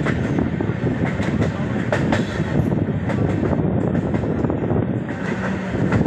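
Train running along the track, heard from its window: a steady rumble of wheels on rails with scattered clicks.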